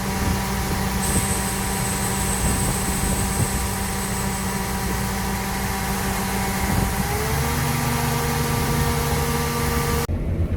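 Combine harvester running steadily while harvesting, a steady machine hum with several held tones. About seven seconds in, the tones shift in pitch. Near the end the high hiss drops away abruptly.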